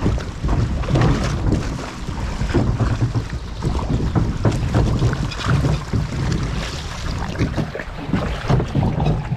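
Water running and splashing in a log flume channel around the ride boat, with wind buffeting the microphone.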